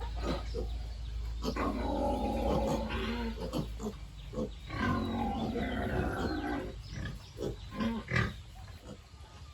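Pigs calling: two drawn-out squealing calls, then a few short knocks and clatters near the end.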